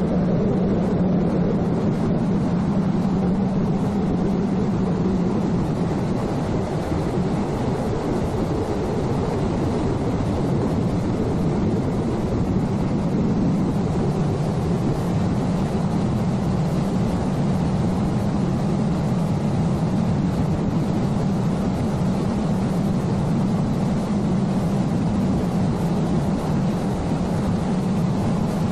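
Yamaha YFR-27 cabin boat's outboard motor running steadily at planing speed. A continuous low drone is mixed with the rush of water and wind.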